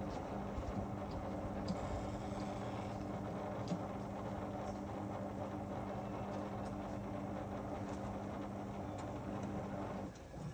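Whirlpool FSCR 10425 front-loading washing machine running its drum motor with a steady hum, which cuts off sharply about ten seconds in, as the drum pauses between turns of the wash cycle.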